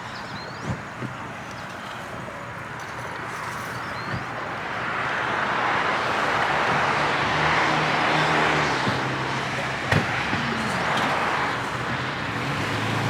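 Car on the move: steady road and engine noise that swells about five seconds in, with a few sharp clicks.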